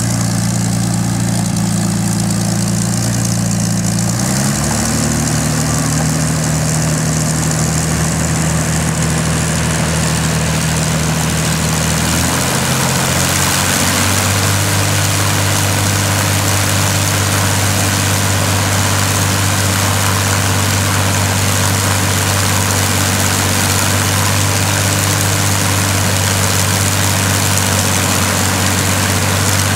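Packard-built Rolls-Royce Merlin V-12 aero engine running on a trailer-mounted display stand. Its speed rises about four seconds in, shifts again around twelve to fourteen seconds, then holds steady.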